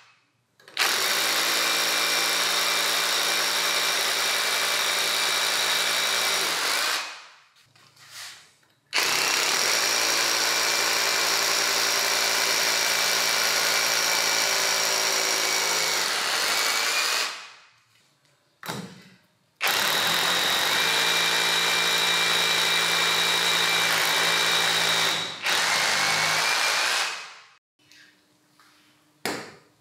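Makita HR2451 rotary hammer drill, converted to run on an 18V battery pack, run three times for about seven seconds each: it starts abruptly, runs at steady speed, then winds down after each release of the trigger.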